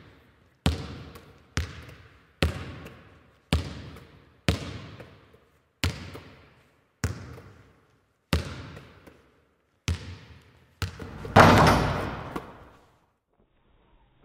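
Basketball bouncing on asphalt about once a second, about ten bounces, each trailing off with an echo. About eleven seconds in comes one louder, longer crash.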